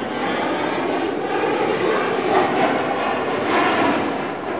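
HAL Tejas fighter's jet engine, a steady loud rush with a couple of brief louder swells.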